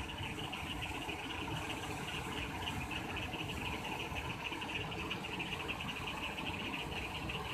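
Muddy floodwater rushing over the edge of a flooded concrete causeway, a steady wash of noise, with insects chirring in a rapid, even high-pitched pulse above it throughout.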